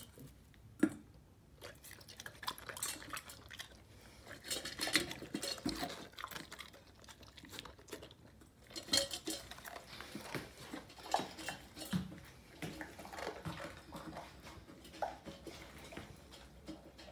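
Siberian husky eating from a stainless steel bowl: irregular small clinks and scrapes of food and muzzle against the metal, with chewing.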